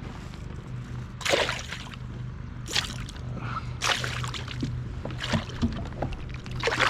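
A hooked pike splashing at the water's surface beside the boat as it is drawn in, in about five short splashes over a steady low hum.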